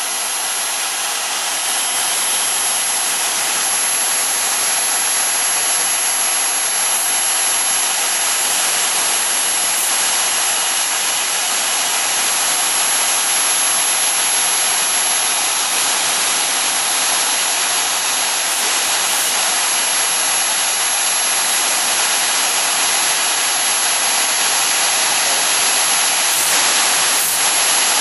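CNC router spindle running at high speed while its end mill cuts through a foam block: a steady, high-pitched hiss with a thin, constant whine above it.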